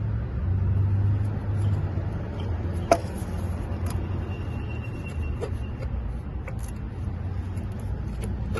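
A few sharp metal clicks and knocks, the loudest about three seconds in, as a stuck EGR valve is pried and wiggled loose from a 6.0L diesel engine. Under them runs a steady low hum.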